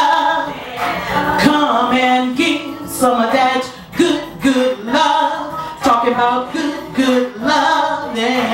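A woman singing a blues-soul song over backing music, her voice in short repeated phrases.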